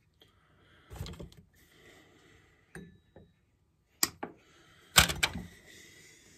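Handling noise of hand tools and small parts clicking and knocking against a chainsaw's body as a new fuel line is worked into place with pliers. The sharpest knock comes about five seconds in, with softer rustling and clicks between.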